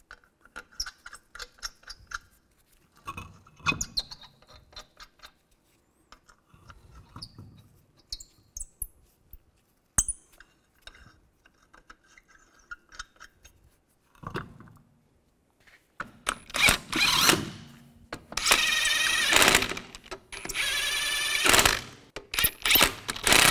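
Steel lug nuts clicking and scraping as they are threaded onto the wheel studs by hand. In the last third a cordless impact wrench runs in four loud bursts of about a second each, spinning the nuts down onto the steel wheel.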